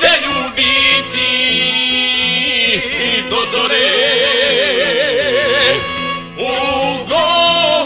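Folk song: male voices singing over instrumental backing, with a few seconds of instrumental passage in the middle where a held, wavering melody line carries on before the voices come back near the end.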